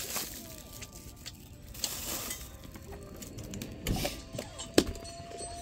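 A metal spoon clinking and scraping against a stainless steel bowl of rice, fried egg and grilled hairtail, a few sharp clinks with the loudest near the end. A faint steady tone runs under the second half.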